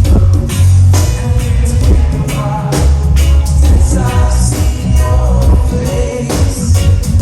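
Live reggae band playing, with a sung vocal line over a heavy bass line and a steady drum beat.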